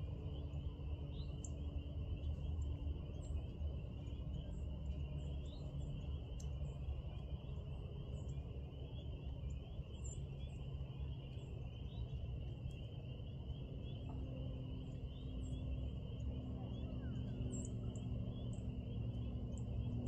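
Evening outdoor ambience: a steady high-pitched chorus of rapid pulsing calls over a continuous low rumble, with scattered short bird chirps.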